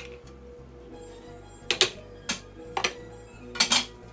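Background music with about four sharp clinks of kitchenware between roughly two and four seconds in, as a glass lid is set on a steel rice pot.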